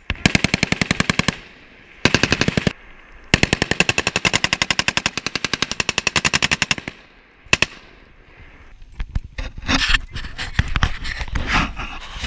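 M240 machine gun firing from the prone position: a short burst, a second short burst, then a long burst of about three and a half seconds, and a single shot near the middle. In the last few seconds, irregular crunching and knocking on gravel as people move.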